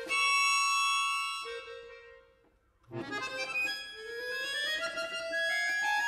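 Chromatic button accordion playing a loud held chord that dies away almost to silence. Halfway through, a sudden accented chord breaks in, and a line then climbs steadily in pitch.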